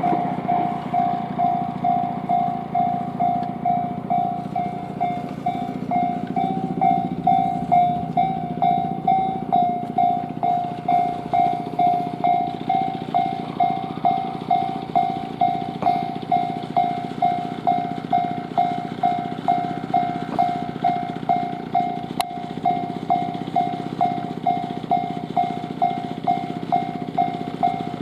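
Japanese railway level crossing's electronic warning bell ringing, a single high tone repeating about twice a second, while the crossing is closed for a train. Underneath runs a steady rumble of a passing train.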